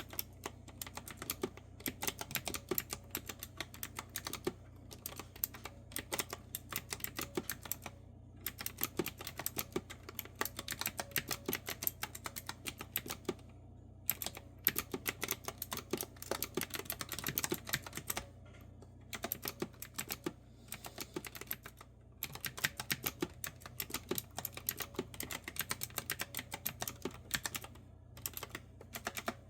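Fast typing on a clicky retro-style keyboard with round keycaps: runs of crisp keystroke clicks lasting a few seconds, broken by short pauses, over a faint steady hum.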